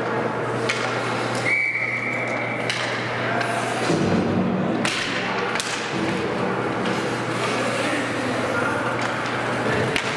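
Ice hockey rink sounds: sharp clacks and thuds of sticks and puck striking the ice and boards, scattered voices, and a steady low hum. A brief high steady tone sounds about a second and a half in.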